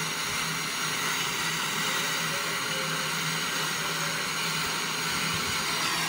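Brazing torch flame hissing steadily as it heats a thin copper refrigerant tube joint on a refrigerator for brazing.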